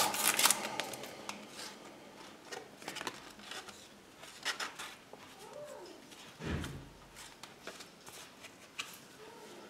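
Faint crackles, rustles and clicks of a trading-card booster pack's wrapper being torn open and handled, with a dull thump about six and a half seconds in.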